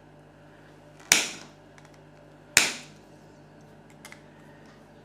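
Two sharp knocks, each with a short ring, about a second and a half apart, from a tool striking at the crimped casing of the electric parking brake's small Johnson DC motor as it is forced open.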